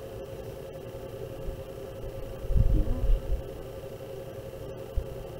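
Steady low room hum with a single constant tone, and a brief low rumbling bump just after halfway through.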